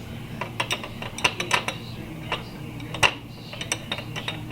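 Steel wrenches clinking against a Master padlock as they are tried on it: irregular sharp metal clicks and clacks, with one louder clack about three seconds in.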